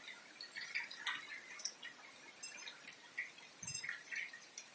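Rain falling in a steady hiss, with water drops dripping and ticking irregularly, and one brief low knock a little before the end.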